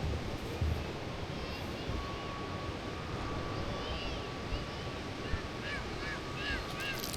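Birds chirping in short, arched notes, sparse at first and then a quick run of repeated chirps near the end, over a steady thin high tone and a low outdoor rumble with a few soft thumps.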